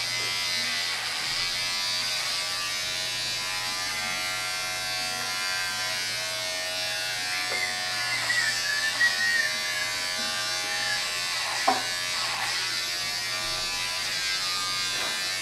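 Corded electric trimmer buzzing steadily as it is run along the beard under the chin. A sharp click sounds once near the end.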